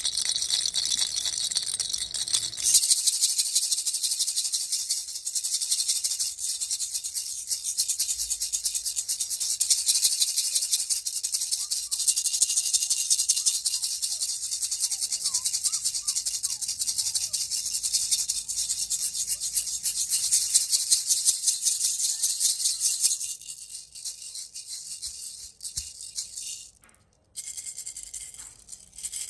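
Baby rattle shaken fast and steadily. After about twenty seconds it turns softer and sparser, with a brief stop near the end.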